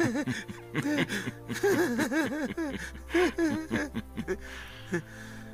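A man laughing in several short bursts of rising-and-falling "ha" sounds, over low sustained background music.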